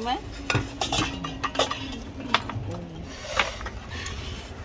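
Plates and cutlery clinking on a table, several sharp separate clinks.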